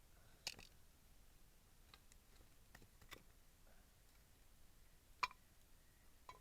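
Wood fire crackling, with sparse single sharp pops: about six over the stretch, the loudest a little past five seconds in.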